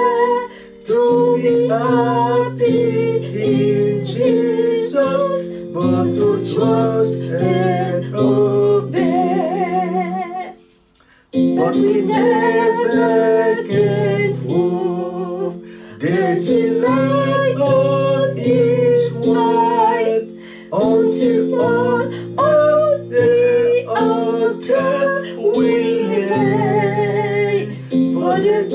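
A man and a woman singing a hymn together over an instrumental accompaniment, with a short pause about eleven seconds in.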